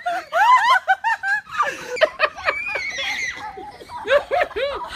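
High-pitched human laughter in quick repeated bursts.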